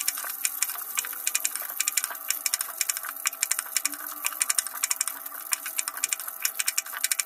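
Kitchen knife slicing small round eggplants on a wooden cutting board: a quick, uneven run of sharp taps, several a second, as the blade cuts through and hits the board. A faint steady hum sits underneath.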